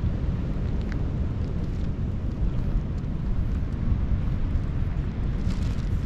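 Wind buffeting the microphone: a steady low rumble that stays even throughout.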